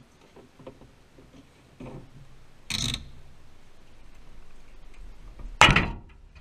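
Light clicks and handling noises, with two loud, short clattering bangs about three seconds apart, the second one louder.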